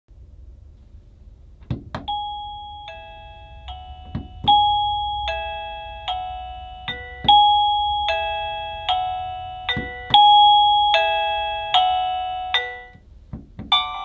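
Sanwa 400-BEL001 wireless chime receiver playing its electronic bell-tone melody, a repeating tune of clear ringing notes. Its volume button is pressed several times, each press heard as a pair of sharp clicks, and the chime's loudness changes with each press.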